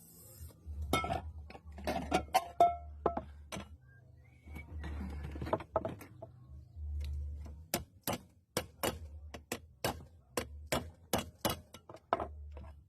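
Repeated sharp metal strikes on a warped pressure cooker, likely hammer blows knocking the warped part back into shape. The first half has scattered knocks; past the middle they settle into a quick, even run of about three blows a second.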